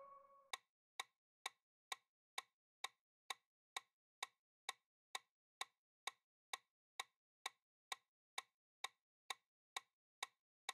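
Countdown-timer sound effect: a steady, clock-like ticking at about two ticks a second, with the fading tail of a chime in the first half second.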